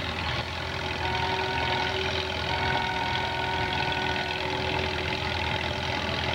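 Antique farm tractor engines running at idle, a steady low rumble with a few held higher tones over it.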